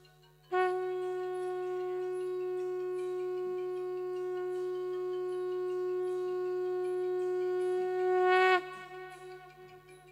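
A single long note blown on a horn-like wind instrument, held steady for about eight seconds and dipping in pitch as it cuts off.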